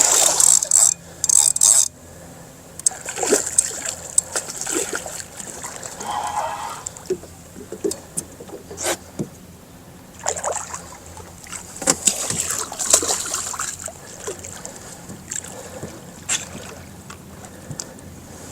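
Irregular water splashing and sloshing alongside a small boat while a hooked snook is being fought, loudest in the first two seconds and again about ten to thirteen seconds in, with scattered sharp knocks.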